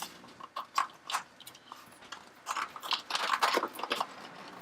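Product packaging being handled and dug through inside a box: irregular crunchy scrapes and clicks, busiest in the second half.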